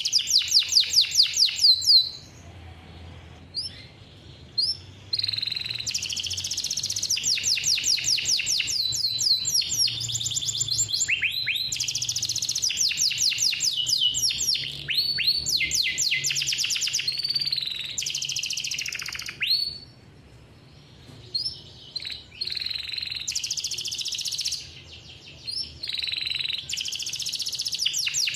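Male domestic canary singing long rolls: fast runs of rapidly repeated high notes, some gliding down in pitch, broken by a few short pauses.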